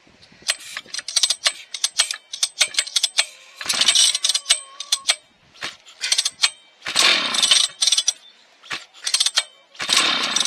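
Vintage Husqvarna 1100 chainsaw being pull-started over and over: three longer pulls of the starter cord with rapid clattering and clicks between them, the engine turning over without catching because the fuel tank is empty.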